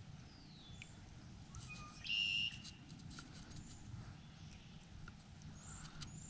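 Birds calling, with short chirps and slurred high whistles scattered throughout, and one louder, steady high note for about half a second just after two seconds in. Faint clicks and a low rumble of wind lie underneath.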